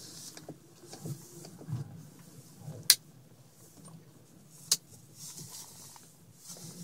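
Low, steady hum inside a running car's cabin, with soft hissing that comes and goes and two sharp clicks a little under two seconds apart, the first the louder.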